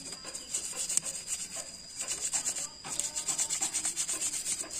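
A toothbrush scrubs a motorcycle engine block that is coated in crust-cleaning liquid, rubbing in quick back-and-forth strokes as the loosened grime comes off. The strokes let up briefly near the middle.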